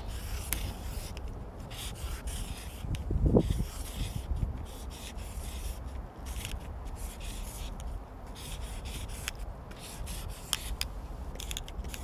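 A paint marker's felt nib rubbing and scratching across a painted metal door in short stop-and-go strokes as a graffiti tag is written. A brief louder low sound comes about three seconds in.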